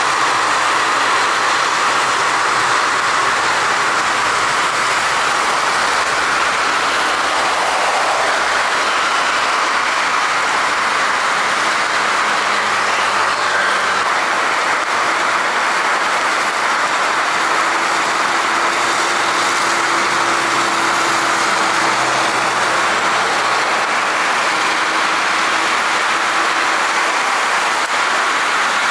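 Aircraft engines running with a steady, even rushing noise, with a faint steady tone joining about halfway through.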